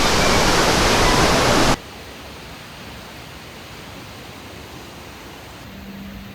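Loud steady rush of water, like heavy rain or a river, that cuts off abruptly about two seconds in. A much quieter steady hiss follows.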